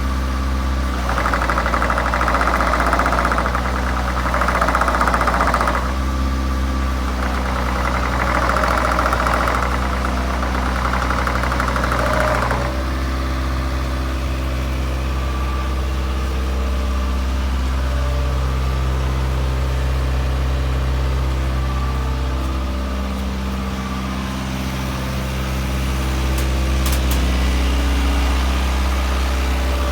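Diesel engine of a JCB 8080 midi excavator running steadily. Two spells of rasping noise rise over it in the first half, and its tone shifts a little later on.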